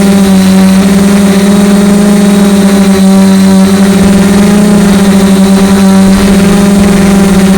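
DJI Flame Wheel F450 quadcopter's electric motors and propellers humming loud and close, heard from the camera mounted on the craft, at a steady pitch with small shifts.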